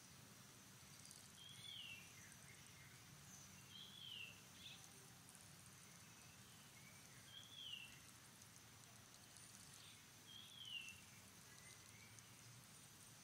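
Faint outdoor ambience: a short, high call falling in pitch, repeated four times about every three seconds, over a steady faint high hiss.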